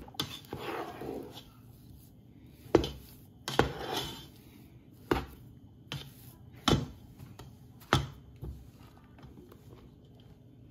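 Metal potato masher working mashed potato in a steel saucepan: soft squelching and scraping strokes with about six sharp clanks of the masher against the pan, the last a little before the end.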